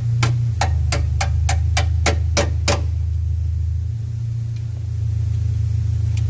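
Quick, evenly spaced metallic clicks, about four a second, that stop a little under three seconds in, over a steady low hum.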